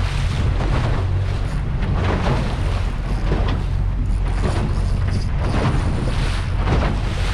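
Wind rumbling on the microphone over water rushing and splashing against the hull of a small boat moving through chop.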